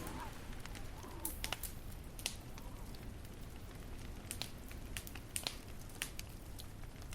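Fireplace crackling: irregular sharp pops over a steady low rumble of burning.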